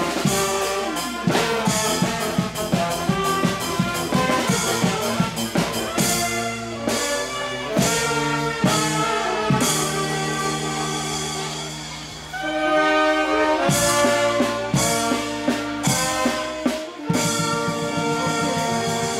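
Brass band (a Spanish charanga) playing a lively tune with brass and drums, with a brief lull about twelve seconds in.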